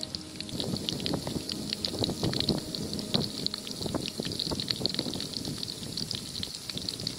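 Jackfruit pieces and seeds deep-frying in a wok of hot oil, bubbling and sizzling with a dense run of small, irregular pops.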